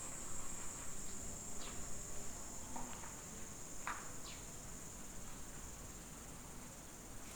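Steady high-pitched insect chorus of crickets or similar night insects, with a few faint short chirps over it.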